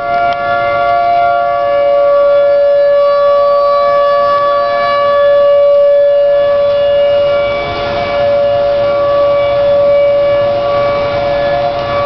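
Outdoor tornado warning siren sounding a steady, sustained wail at an unchanging pitch, swelling and fading gently in loudness.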